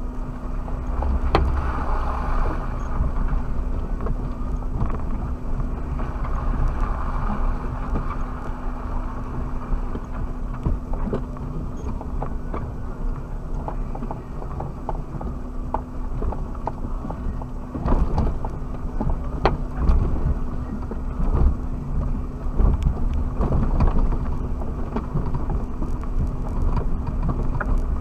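Off-road 4x4 driving over rough ground, heard through an in-cabin dashcam: a steady engine drone and low rumble with frequent knocks and rattles, which come thicker in the second half.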